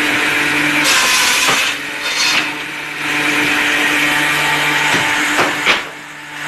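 An electric woodworking power tool running with a steady motor hum while cutting wood, with a few short knocks and a brief drop in level near the end.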